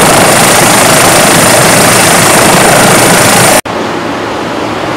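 Loud, steady rush of wind and water on an open microphone at sea, without any engine note. About three and a half seconds in it cuts off suddenly, giving way to a quieter steady rumble inside a yacht's cabin.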